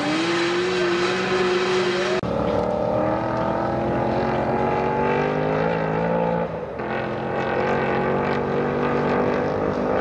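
Engines running with a steady, pitched drone that drifts slowly in pitch. The sound changes abruptly about two seconds in and again near seven seconds.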